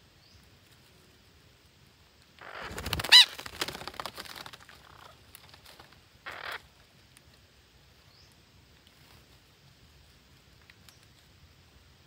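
Red-breasted parakeets in a bush: a burst of rustling through the leaves starting about two and a half seconds in, with one short, loud pitched call at its peak. A second short, rasping burst comes a few seconds later.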